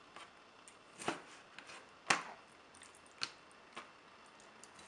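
Kitchen knife cutting raw chicken hearts on a plastic cutting board: a handful of sharp knocks of the blade striking the board, roughly one a second.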